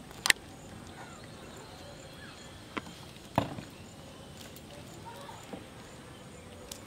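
Sharp clicks and a knock from handling bamboo fishing rods and tackle: one loud click right at the start, then another click and a duller knock about three seconds in, over a quiet steady background.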